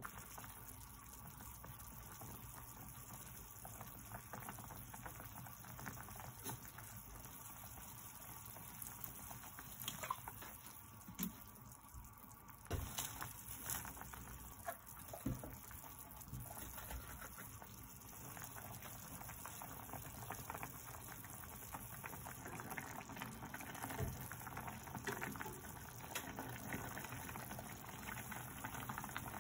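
A pot of spicy zucchini and pork stew bubbling steadily at a boil, with a few short sharp knocks.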